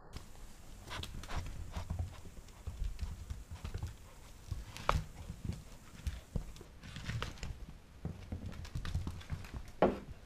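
Pembroke Welsh corgi puppy's claws and paws clicking and scrabbling on a hardwood floor as it tugs at a rope toy, with irregular knocks and thumps. There is a sharper knock about five seconds in and another near the end.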